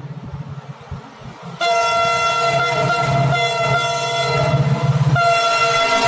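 Indian Railways WDP 4 diesel-electric locomotive sounding its horn as it approaches at speed. A long, loud, multi-tone horn blast starts suddenly about a second and a half in, and a second blast follows near the end. The locomotive's low running rumble sounds underneath throughout.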